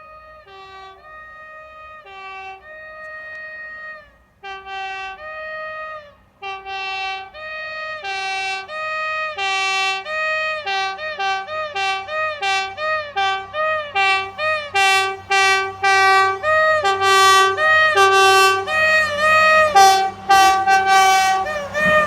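Train's two-tone horn played as a long tune, many short notes switching between a low and a high tone and sometimes sounding together, getting steadily louder as the train approaches.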